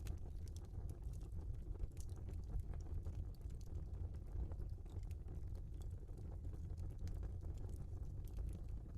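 Wood fire burning in a fireplace: a steady low rumble of flames with frequent small, sharp crackles and pops from the burning logs.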